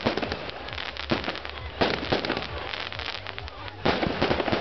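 Fireworks display: shells bursting in sharp bangs, four times about a second or two apart, over continuous crackling.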